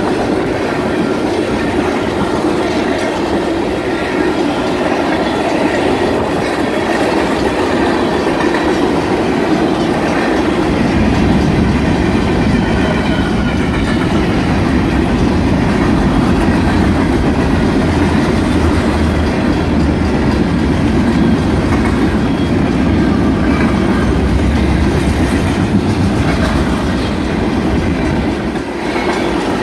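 Freight cars of a manifest train rolling through a grade crossing: a steady loud rumble of steel wheels on rail with rhythmic clickety-clack over the rail joints, the low rumble growing heavier about a third of the way in. The crossing's mechanical bell keeps ringing under it while the gates are down.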